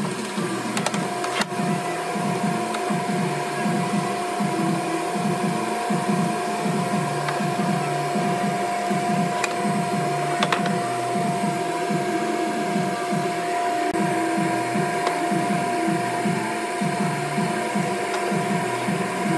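Table saw running free with no cut under way: a steady motor whine from the spinning blade, with a couple of light knocks from the wood being handled.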